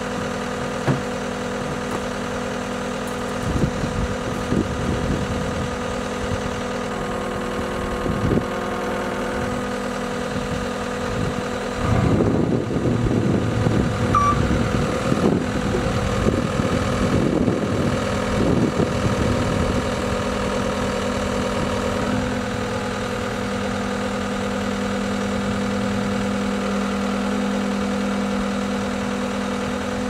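John Deere 333G compact track loader's diesel engine idling steadily, with a stretch of irregular knocking and clanking in the middle.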